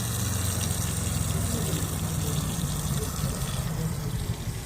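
Heavy diesel engine of a farm machine running steadily, with a low, rapid throb and a rushing hiss over it.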